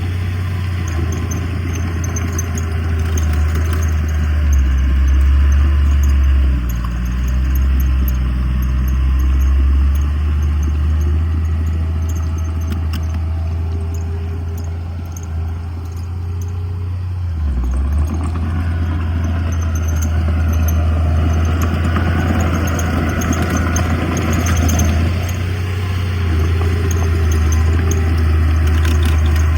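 Heavy earthmoving machinery's diesel engine running steadily under load, with some clatter. The engine note eases briefly about halfway through, then picks up again.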